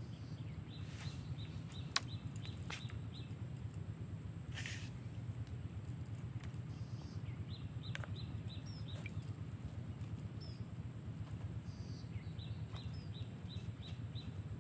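A bird gives runs of short, evenly spaced high chirps, about five a second, three times over a steady low rumble. A few sharp clicks and a brief rustle come in between, the loudest click about two seconds in.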